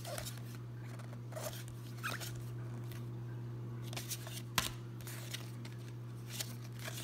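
Stiff tarot cards being slid and flipped between two stacks held in the hands, with scattered sharp card clicks, the sharpest about four and a half seconds in. A steady low hum sits underneath.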